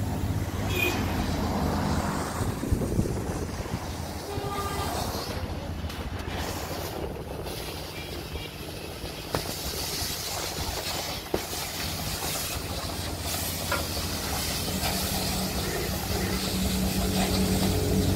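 Pressure washer running with a steady hum while its water jet hisses against a truck's body and wheels; the spray hiss grows stronger about halfway through.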